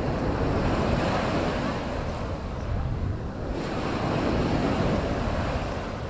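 Sea waves washing onto the beach, rising and falling twice, with wind buffeting the microphone.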